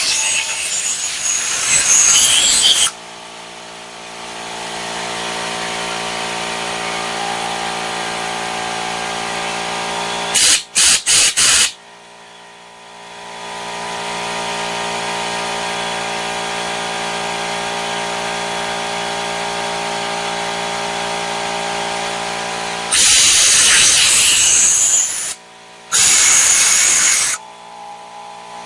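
Compressed-air blow gun blowing out a lawnmower carburetor's float bowl and jet passages in loud hissing blasts: a long blast at the start, three quick short blasts about 11 seconds in, and two more blasts near the end. Between the blasts an air compressor runs with a steady hum, starting after the first blast and getting louder a few seconds later.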